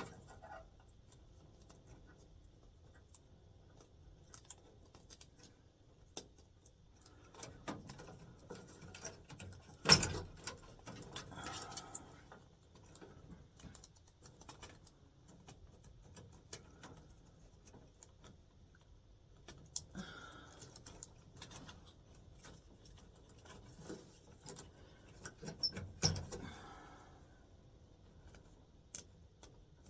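Small clicks and rattles of wires, spade connectors and a furnace control board being handled during a board swap. There is one sharper knock about ten seconds in and busier bursts of handling around twenty and twenty-six seconds.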